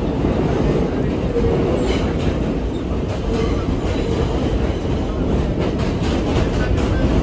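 Running noise of a 1964 Budd R32 subway car at speed, heard from on board: a steady rumble, with a run of clicks and clacks from the wheels over rail joints in the second half.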